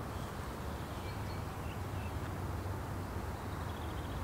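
Quiet outdoor background: a steady low rumble with a few faint, brief bird chirps, and a short run of chirps near the end.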